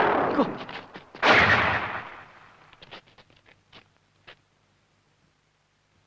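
Two loud blast sound effects. The first is already sounding at the start and fades out about a second in. The second starts sharply just after and dies away over about a second, and a few faint clicks follow.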